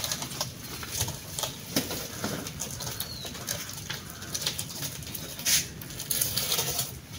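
Dry banana leaves and stem fibres rustling and crackling as they are gathered and pulled apart by hand, in irregular bursts with one louder crackle about five and a half seconds in.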